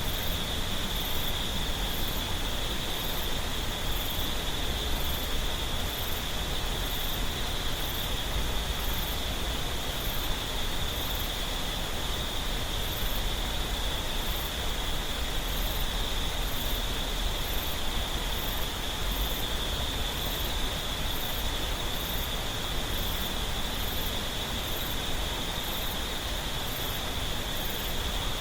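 Clear mountain stream water flowing steadily, with a constant high insect drone over it and a faint, very high chirp repeating regularly, a little faster than once a second.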